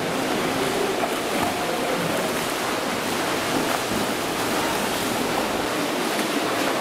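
Swimmers splashing as they swim front crawl in an indoor pool, a steady wash of water noise.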